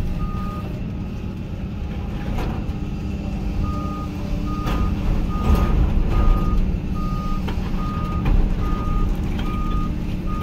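Hyundai HX220AL excavator's diesel engine running, heard from inside the cab, with its travel alarm beeping in a steady high tone about twice a second. The beeping stops for about three seconds near the start and then resumes, and a few knocks sound over the engine.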